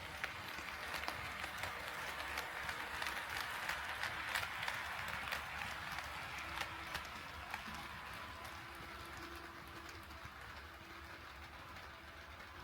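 HO scale model train rolling along the track: a steady rushing of wheels on rails with irregular clicks, loudest in the first half and then fading as it moves away.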